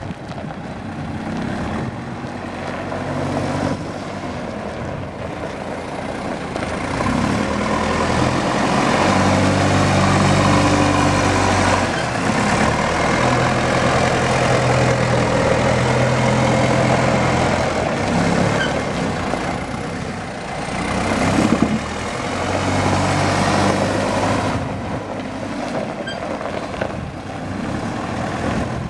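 Cat TH62 telehandler's diesel engine running as the machine drives around, its note rising and falling several times with the throttle, loudest through the middle stretch.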